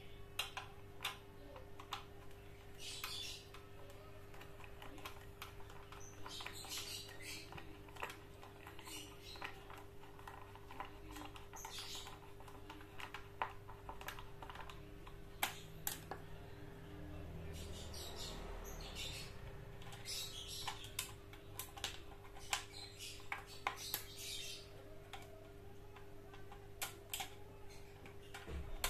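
Scattered light clicks, taps and brief scrapes of hands handling a metal-cased switching power supply on a plywood board, over a steady low hum.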